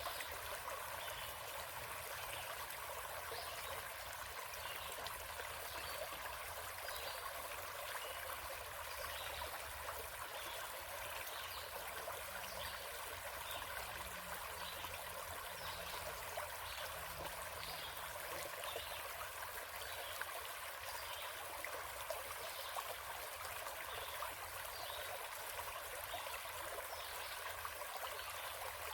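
Small forest stream flowing and trickling steadily.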